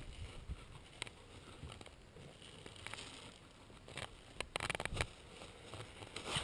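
Faint scuffing and scraping of a caver moving through a narrow rock crevice, with scattered knocks and a quick run of them about two-thirds through.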